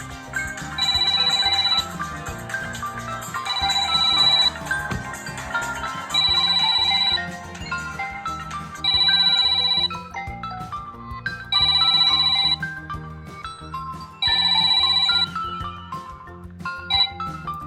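Samsung smartphone playing a musical ringtone: a bright ringing tone about a second long comes six times, roughly every two and a half seconds, with a melody over a bass line between the rings.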